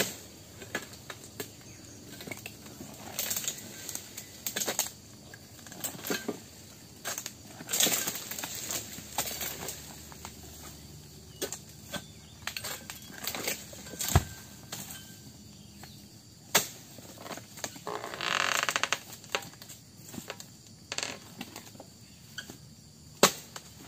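Oil palm harvesting with a hooked sickle on a long pole (egrek): repeated sharp knocks and scrapes as the blade hacks at the fronds and fruit-bunch stalks. A heavier thud comes about fourteen seconds in, and a burst of leaf rustling a few seconds later.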